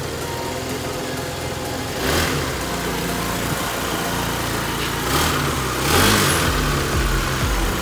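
Kymco Racing King 180 scooter's single-cylinder engine running at idle, swelling briefly a few times.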